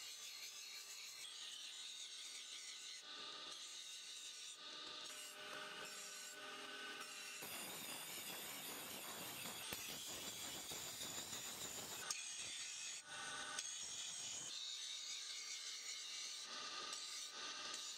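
Abrasive rubbing and scraping on metal during knife making, steady and fairly quiet, with a louder, rougher stretch in the middle.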